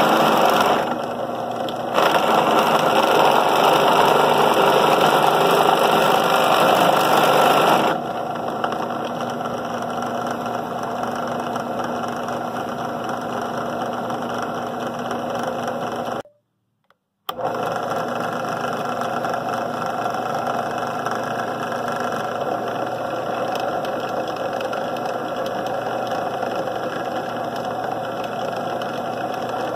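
Drill press running with its bit boring into a stainless steel dome: a steady motor hum and cutting noise, louder and harsher for the first eight seconds. About sixteen seconds in the sound drops out completely for about a second, then the steady running resumes.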